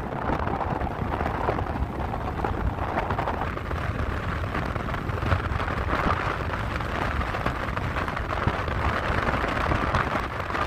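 Strong blizzard wind buffeting the microphone: an uneven low rumble under a steady rushing hiss.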